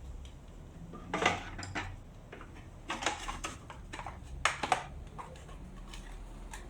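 Hard small parts being handled and knocked together during assembly: three clusters of short clinks and knocks, about a second in, about three seconds in and about four and a half seconds in, with lighter clicks between.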